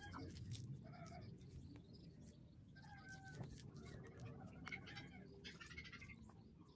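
Hens clucking faintly in short, level-pitched calls, several times, with a few faint ticks in between.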